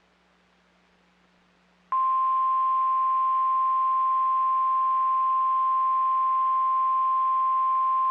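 NOAA Weather Radio warning alarm tone: a single steady high tone at about 1050 Hz that starts suddenly about two seconds in and holds unchanged, after a moment of faint radio hiss and hum. It is the alert that signals a warning broadcast, here a severe thunderstorm warning, is about to be read.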